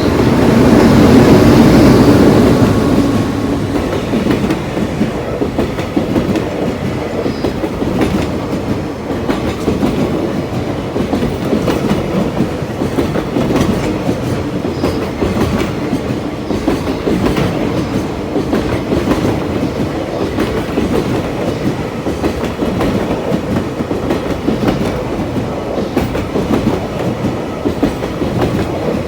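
Freight train passing close by. It is loudest in the first few seconds, then settles into a steady run of wagons clattering past, with wheels clicking over the rail joints.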